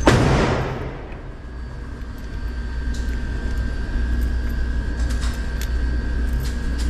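A gunshot from another lane at an indoor range, its echo dying away over about a second, then a steady low hum with a few faint metallic clicks as cartridges are loaded into a revolver's cylinder.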